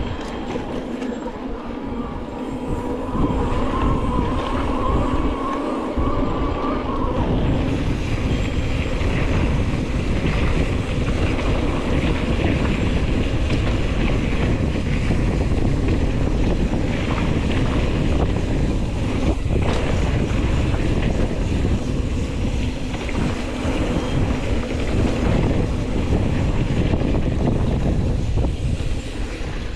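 Mountain bike riding down a dry dirt trail: wind buffeting the microphone over the tyres rolling on dirt and the bike rattling. There is a single sharp knock about two-thirds of the way through.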